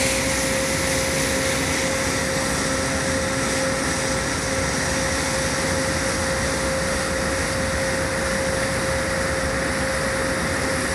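Sightseeing river boat's engine running under way: a steady drone with a constant hum over an even wash of noise.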